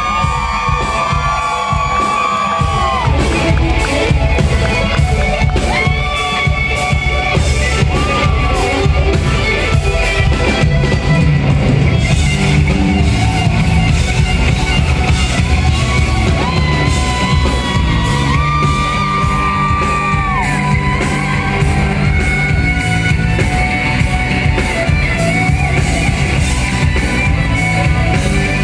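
Live rock band playing, led by an electric guitar solo of long held notes that bend up and down in pitch, over a steady bass line and drums.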